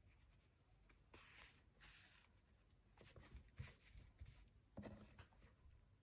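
Faint rustling and scratching of wool fabric, lace and paper being handled by hand for slow stitching, in a few soft brushes through the stretch.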